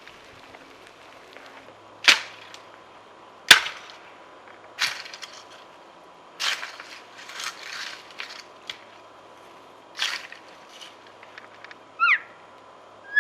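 A series of sharp cracks and snaps, like sticks or branches breaking in the timber, about seven of them a second or two apart. About a second before the end comes a short elk-like call falling in pitch.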